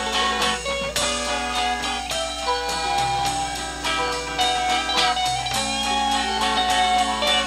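Amateur rock band's demo playing, guitar-led with a steady beat of about four strokes a second, recorded on a four-track cassette recorder; a low hum runs underneath.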